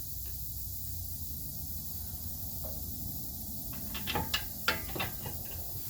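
A few short, sharp metallic clicks and clinks of brake hardware and tools being handled, bunched together about four to five seconds in, over a steady low hum.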